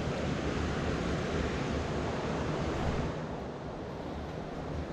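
Steady rushing of a rocky stream's water running over stones, with the hiss thinning slightly about three seconds in.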